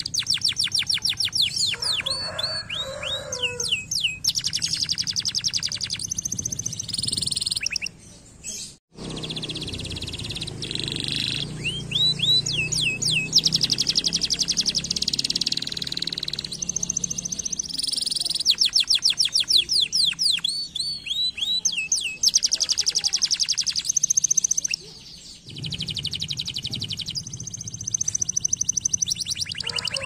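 Domestic canary singing: long rolls of very fast trilled notes alternating with short runs of down-sweeping whistles, broken by brief pauses. The sound cuts out completely for a moment about nine seconds in.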